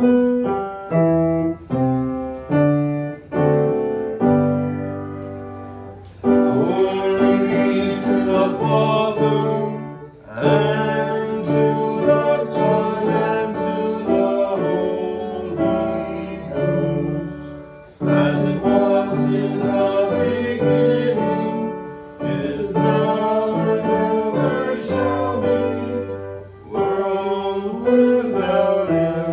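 Piano music, single notes at first, filling out from about six seconds in with fuller chords and voices singing.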